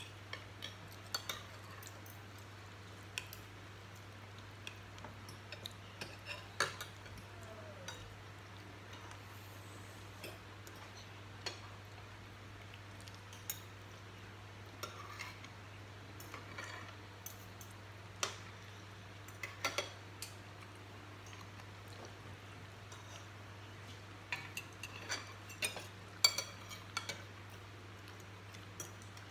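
Forks and spoons clinking and scraping against ceramic plates and bowls during a meal, in irregular scattered clicks that grow busier near the end, over a steady low hum.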